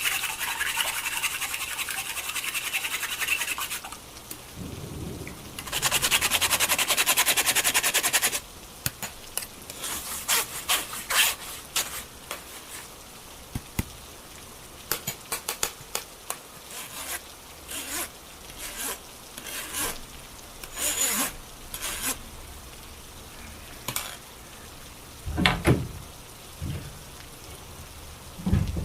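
Kitchen food-preparation sounds: two spells of fast, rhythmic beating or scraping, then a run of light knocks and clicks of utensils.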